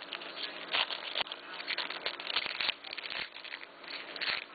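Clear plastic card sleeve crinkling and rustling as a trading card is slid out of it and handled, with irregular crackles and small sharp clicks.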